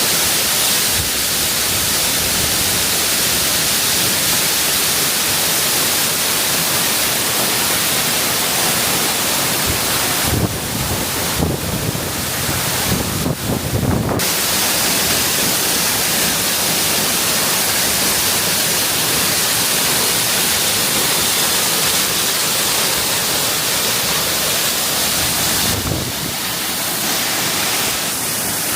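Waterfall rushing in a loud, steady hiss of falling water. About ten seconds in, and briefly again near the end, low rumbling bumps break in for a few seconds.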